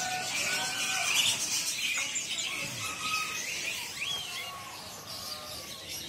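Many caged songbirds chirping and twittering at once, a dense mix of high, overlapping chirps and trills with a rising whistle about four seconds in.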